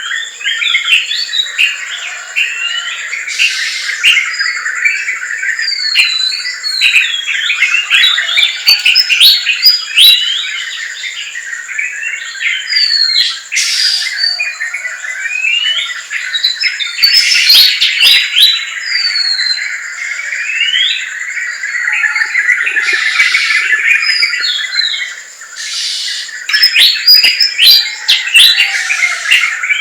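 A dense forest chorus of many birds chirping, whistling and calling over one another, with quick rising and falling notes. A steady, thin high tone runs underneath.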